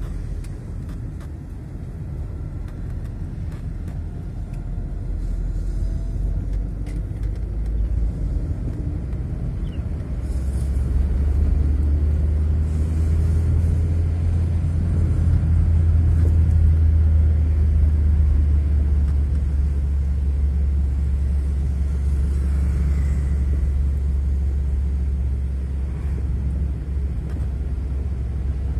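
Road and engine rumble of a moving car heard from inside its cabin: a steady low drone that grows louder about ten seconds in.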